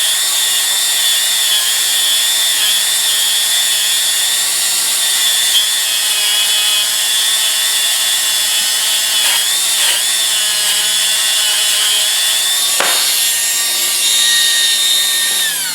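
Motor-driven abrasive wheel running with a steady high whine and hiss as steel pliers are ground against it, the pitch dipping briefly twice under load. Near the end it is switched off and the whine falls away.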